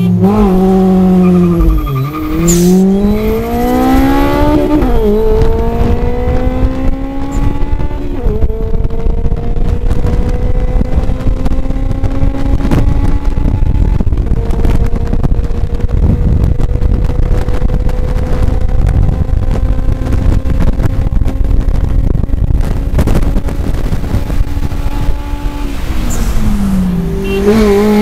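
Four-cylinder car engine under hard acceleration, heard from inside the car: after a brief dip the revs climb steeply, drop at upshifts about five and eight seconds in, then pull long and high in the top gear. Heavy road and wind roar runs underneath, and near the end the revs fall and start climbing again.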